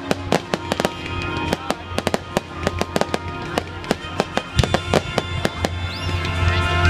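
An aerial fireworks display: rapid sharp bangs and crackles, several a second, over music playing. A short whistle sounds about six seconds in.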